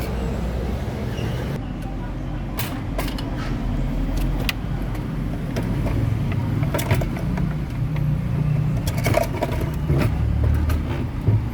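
A motor vehicle engine running steadily with a low hum, with scattered clicks and taps over it.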